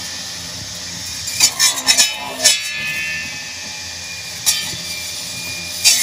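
Remote-control robot's spinning table-saw blade and its motor whining steadily, with sharp bursts as the blade bites into the trunk of a small bay tree: a cluster about one and a half to two and a half seconds in, one more a little after four seconds, and another near the end.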